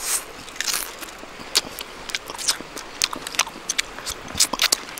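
A man biting and chewing grilled fish close to the microphone: irregular crisp clicks and smacks of mouth and lips.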